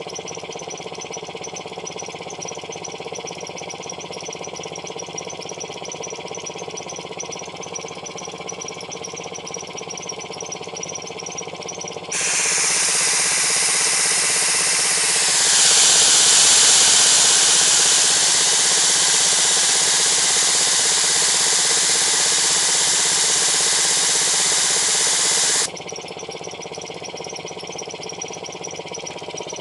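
Vintage belt-driven air compressor running steadily: a cast iron K Series pump turned by a 3/4 HP General Electric motor. About twelve seconds in, a loud steady hiss of escaping compressed air starts suddenly. It grows louder a few seconds later and cuts off suddenly about four seconds before the end.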